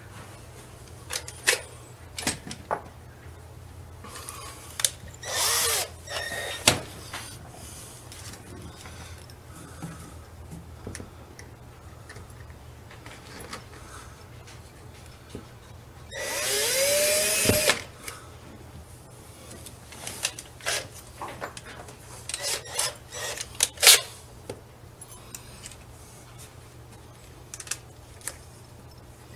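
Cordless drill-driver run twice in short bursts, the second about a second and a half long, its motor whine rising as it spins up and then holding steady. Sharp clicks and knocks of handling are scattered between the runs.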